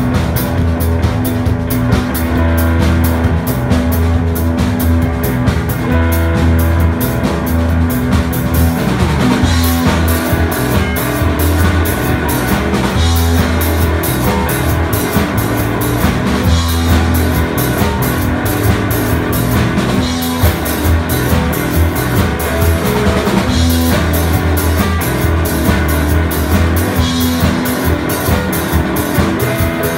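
British blues-rock band playing live in an instrumental passage: electric guitars over a bass guitar and a drum kit keeping a steady beat.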